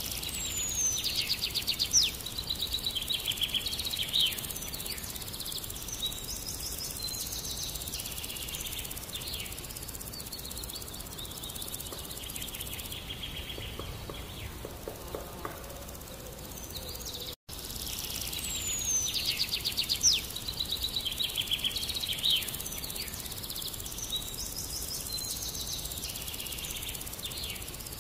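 Songbirds chirping and trilling over a steady outdoor background hiss. After a brief dropout about two-thirds of the way through, the same stretch of birdsong starts over.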